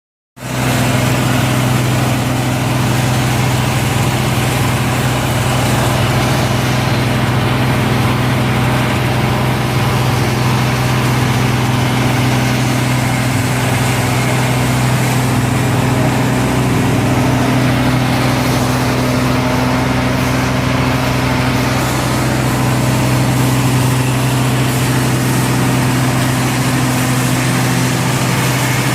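SMF 610 PE/PP plastic pulverizer (disc milling machine) running steadily: a loud, even machine hum with a strong low drone under a wide rushing noise.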